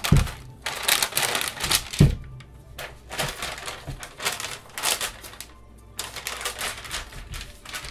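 Freezer paper being peeled off a soap loaf, crackling and rustling in irregular bursts, with a dull knock about two seconds in.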